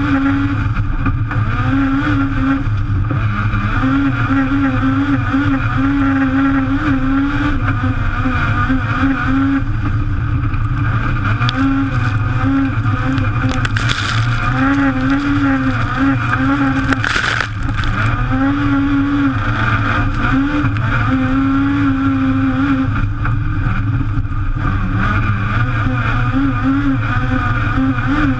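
Race-built Vauxhall C20XE 2.0-litre 16-valve four-cylinder on throttle bodies, heard from inside the cabin of a Class 3 autograss Toyota Starlet, running hard at racing revs. Its pitch climbs and drops again and again as the throttle and the sequential gearbox are worked, over a constant rumble from the car on the rough track. About halfway through there are two brief harsh noises.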